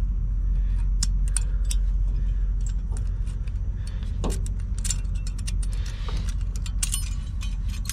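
Small metal brake-pad hardware clips being pushed out of the caliper bracket by hand, making a scatter of light clicks and clinks. Under them is a steady low rumble.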